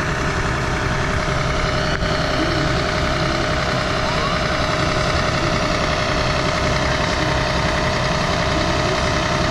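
Diesel engine of a Scania aerial-ladder fire truck running steadily at idle.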